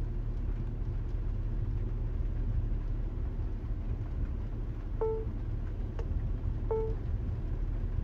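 Car engine idling with a steady low hum, and two short electronic beeps from the mirror dash cam, about five and nearly seven seconds in, with a faint click between them.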